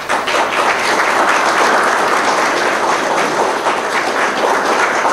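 Audience applauding, a steady mass of clapping hands.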